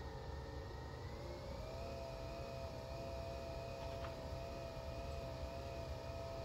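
Nespresso Vertuo capsule coffee machine running near the end of a brew: a steady motor whir and hum that steps up in pitch about a second and a half in.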